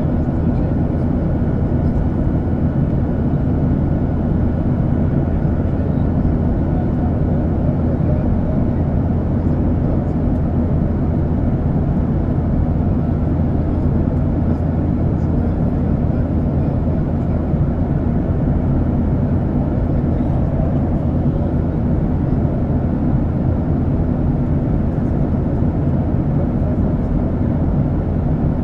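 Steady cabin noise of a Boeing 737-800 in flight, heard inside the cabin over the wing: the CFM56-7B turbofans and the airflow make a constant low rumble, with a faint steady hum running through it.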